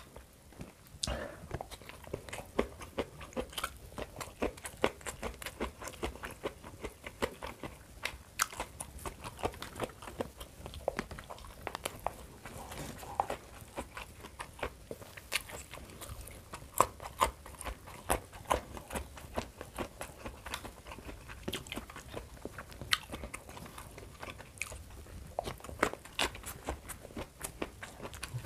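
A person chewing and biting food close to the microphone: many small, irregular crunches and mouth clicks.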